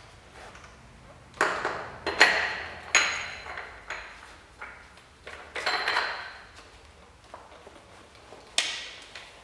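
Metal parts on a handheld rotary polisher's spindle clink together while a buffing wheel is changed. There are about five sharp clinks spread through, each with a short metallic ring, and no motor running.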